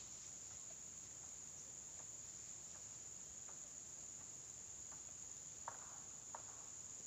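Faint, steady, high-pitched drone of insects in the field, with scattered soft clicks and two sharper clicks near the end.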